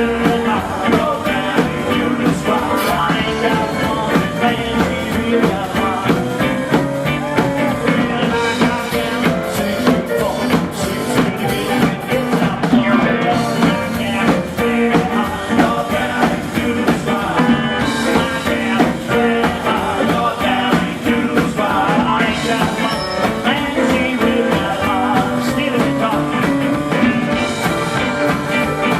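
Live rock and roll band playing a tune, loud and steady, with drum hits throughout.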